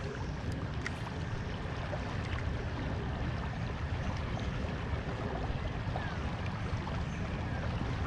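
Steady rush of river current flowing over a shallow rocky stretch, with a low rumble underneath.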